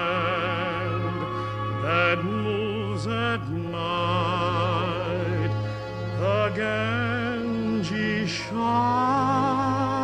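Operatic singing: a voice holding long notes with wide vibrato, over steady instrumental accompaniment.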